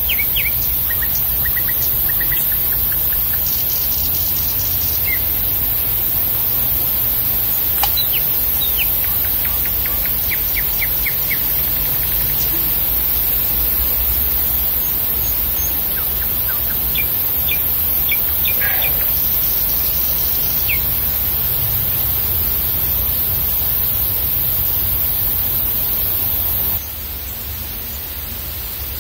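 Small woodland birds giving scattered short chirps and quick trills, over a steady high hiss and a low rumble. The background noise drops abruptly near the end.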